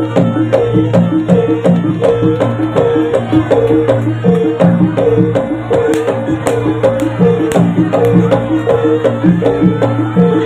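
Jaranan (kuda lumping) accompaniment music: a fast, repeating pattern of short pitched metallic notes with sharp percussion strokes, over a steady low hum.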